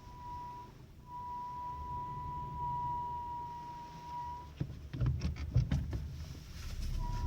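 Skoda Octavia Tour parking brake squeaking as one steady high-pitched tone, breaking off briefly about a second in. About two-thirds through the squeak stops, and a quick run of clicks and knocks comes with a low rumble. The squeak comes back near the end.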